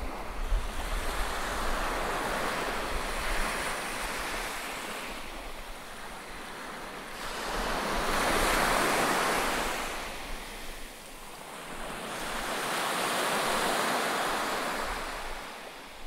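Black Sea surf breaking on a sandy beach, the wash swelling and fading in slow surges, loudest about halfway through and again near the end. Wind buffets the microphone underneath.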